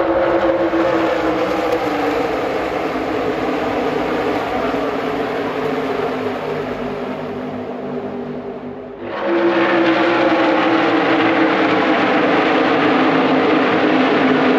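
A pack of NASCAR Xfinity Series stock cars racing past at full throttle, their V8 engines making a loud layered drone that slowly drops in pitch and fades. About nine seconds in it changes abruptly to a louder, steady drone of the pack passing close by.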